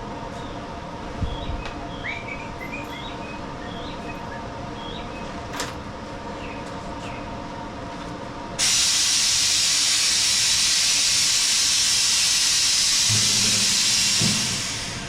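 A loud, steady hiss of rushing compressed air starts abruptly about halfway through, holds for about six seconds and fades out near the end. Before it there is only a low steady hum with a few faint chirps and a single click.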